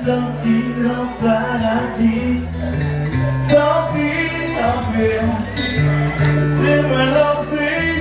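A man singing live into a handheld microphone with acoustic guitar accompaniment, over sustained low bass notes that shift every second or so.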